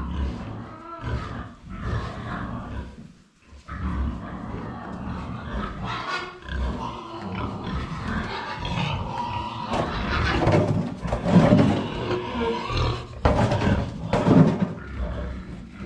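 Hungry farm animals calling in their pen at feeding time, with overlapping calls that get louder and busier in the second half.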